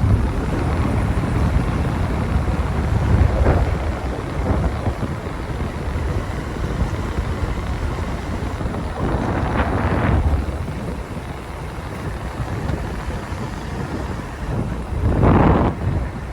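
Road and wind noise from a moving motorcycle: a steady low rumble with wind buffeting the microphone. It swells louder a few times, most strongly about fifteen seconds in.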